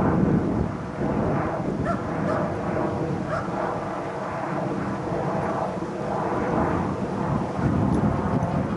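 A German Shepherd barks several times over a steady low rumble of wind on the microphone.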